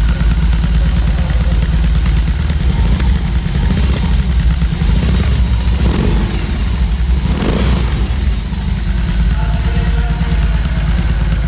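BMW R18's 1800cc air-cooled boxer twin running through its fishtail exhaust: a steady, deep idle, revved up and back down briefly twice around the middle.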